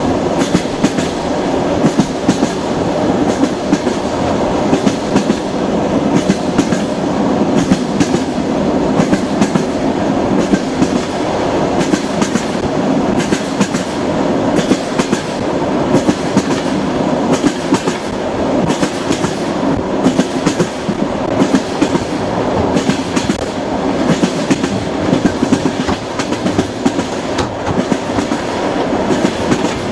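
Passenger train running along the track: the wheels clack over the rail joints in quick repeated beats over a steady rumble.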